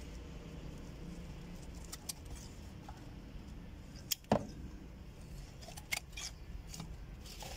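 Hands pulling a plant up out of its soil: scattered small clicks and knocks of handling, the loudest a sharp double knock about four seconds in.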